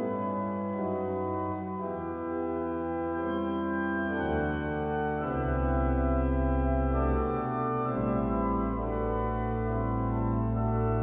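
Pipe organ playing slow sustained chords that change every second or two, with deep pedal bass notes coming in about halfway through.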